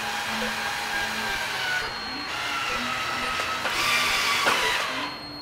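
Cordless drill driving a screw through a wooden crosspiece into a grill-cart leg, the motor running in a few long pulls with its whine sagging slightly under load. The loudest pull comes about four seconds in, and the drill stops near the end.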